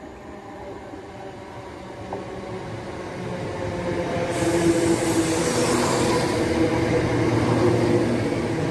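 Southern Class 171 Turbostar diesel multiple unit passing through the station at speed. The drone of its diesel engines grows steadily louder as it nears, and a rush of wheel and air noise sets in about four seconds in as the cab goes by.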